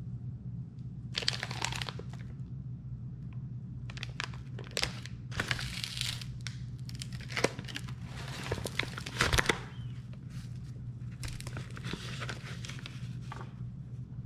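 Paper sugar bag crinkling and rustling in repeated bursts as it is handled and its folded top is gripped, over a steady low hum.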